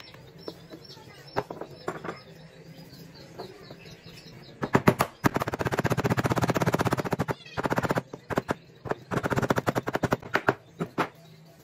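Claw hammer tapping on a wooden end cap with a bearing set in it, seating the cap into the tube of a belt sander roller. A few scattered knocks, then about five seconds in two fast runs of strikes, each lasting around two seconds, and a few single blows near the end.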